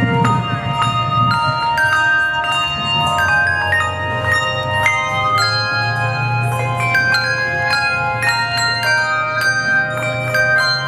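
Handbell choir playing a tune: struck handbells ringing one note after another, each note sounding on as the next is struck, so several notes overlap.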